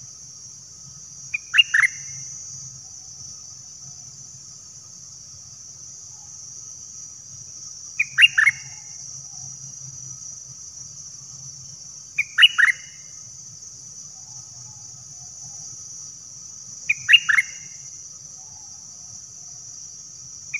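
A caged bulbul, kept as a call bird, sings a short two- to three-note whistled phrase five times, a few seconds apart. A steady high hiss of insects runs underneath.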